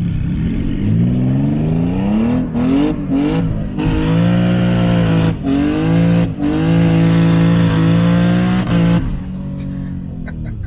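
Twin-turbocharged Infiniti G37 3.7-litre V6 accelerating hard, heard inside the cabin. The engine pitch climbs in several pulls broken by brief cuts, holds high, then drops back about nine seconds in.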